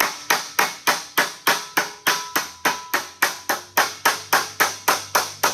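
Rubber mallet tapping along the folded hem of a 26-gauge galvanized steel sheet, closing the hem down flat. It strikes steadily at about four blows a second, and each blow gives a brief metallic ring.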